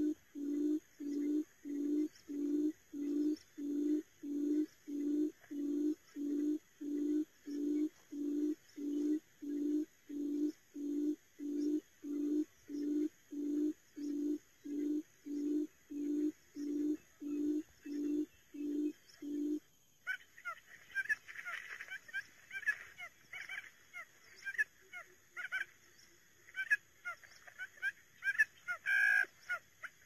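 Quail lure call: a low hooting note repeated steadily, just under two a second, calling quail toward the traps. It stops about two-thirds of the way through, leaving scattered higher chirps and ticks.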